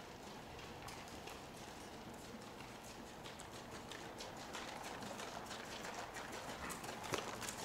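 A horse's hoofbeats on soft indoor-arena footing, faint at first and growing louder toward the end as the horse comes nearer, with one sharper knock near the end.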